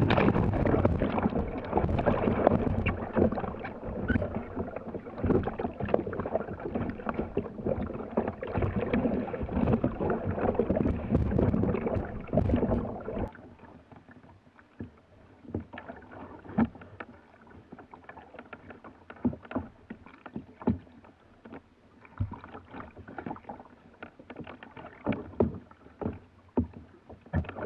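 Sea kayak rolling onto its side in choppy sea, heard from a camera on its deck: loud, dense splashing and sloshing of water starts suddenly and runs for about thirteen seconds. Then it drops off sharply to quieter, irregular slaps and splashes of waves against the hull.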